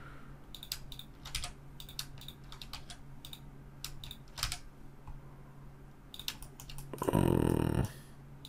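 Computer keyboard keys and mouse buttons clicking in scattered single presses. About seven seconds in, a short low vocal sound lasting under a second.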